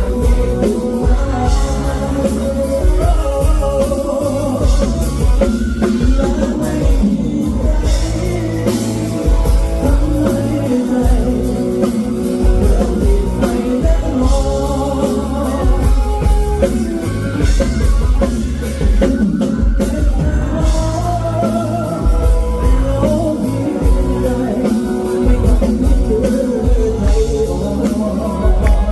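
Thai pop-rock song played by a band, with a drum kit, heavy bass and guitar under a singer's melody.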